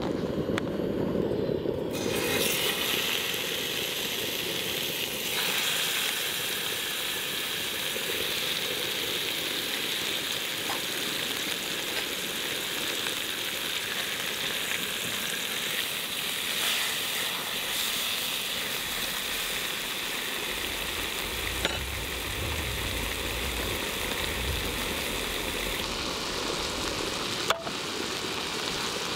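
Food sizzling as it cooks: a steady frying hiss, with a couple of sharp ticks near the end.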